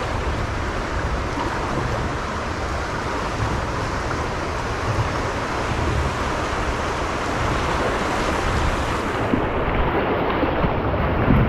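Steady rush of moving river water mixed with wind buffeting the microphone, as kayaks head down the river; the highest part of the hiss drops away about nine seconds in.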